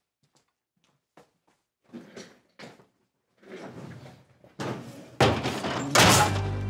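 Faint knocks and rustling as someone settles into a desk chair, then a door shut hard with a loud slam near the end.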